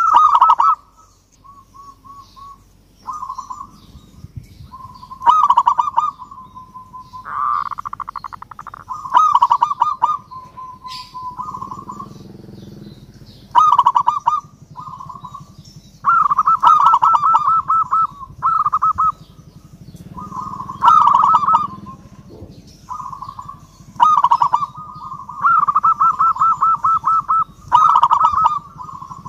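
Zebra dove (perkutut) in full song: phrase after phrase of rapid, trilling coos at a steady pitch, with short pauses between them.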